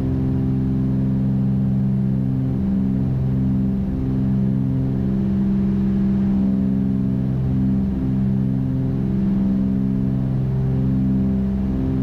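Cessna 310's twin piston engines at climb power just after takeoff, a steady drone heard inside the cockpit that swells and fades slowly in strength.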